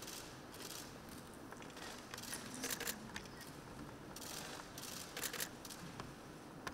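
Press photographers' camera shutters firing in short rapid bursts, several times, over a quiet room hum.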